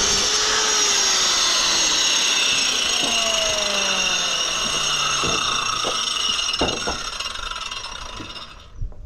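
Power tool running continuously with a high-pitched whine, a lower tone sliding slowly downward under it, then cutting off near the end.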